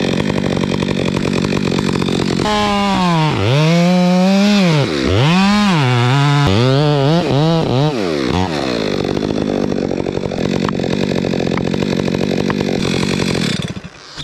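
Two-stroke gas chainsaw running at high throttle while cutting into a tree trunk. Its engine pitch swings down and back up several times in the middle, then drops off sharply near the end.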